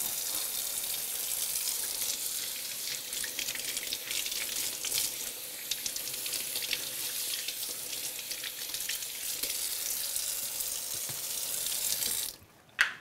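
Kitchen faucet running a steady stream into a sink while whole whiting are rinsed under it, water splashing off the fish and hands. The tap is shut off about twelve seconds in, followed by a short click.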